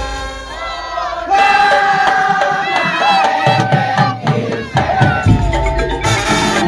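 Madurese ul daul (tong-tong) troupe music: the drumming drops away and a held, bending melodic line carries on with crowd shouting, before dense percussion strokes come back near the end.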